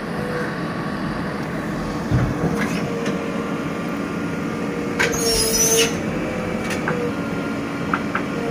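JCB 3DX backhoe loader's diesel engine running under load while its backhoe digs a trench, with a hydraulic whine that wavers in pitch. A few light knocks, and a brief harsher rush of noise about five seconds in.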